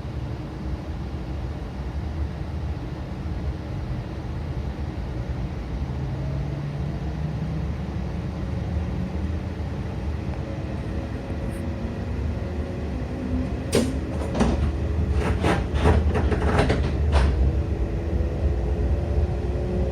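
Inside an E5 series Shinkansen motor car: the Toshiba IGBT VVVF inverter and traction motors whine, rising slowly in pitch as the train gathers speed, over a steady rumble of running noise. About two-thirds through comes a quick cluster of sharp clacks.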